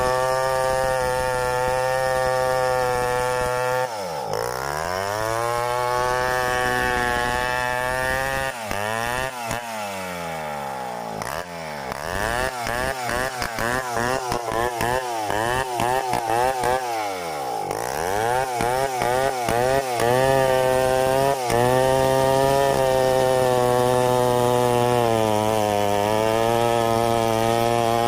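Stihl 070 two-stroke chainsaw running under load while freehand milling a log into lumber. The engine note holds steady, then wavers through the middle in sweeping rises and falls of pitch, and settles again near the end with a slightly pulsing loudness.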